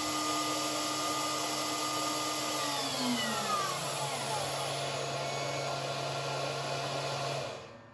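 Spinogy X22 CNC router spindle running free with a steady high whine, then spinning down from about three seconds in, its tones falling in pitch. A steady low hum and rushing noise carries on after it and cuts off abruptly near the end.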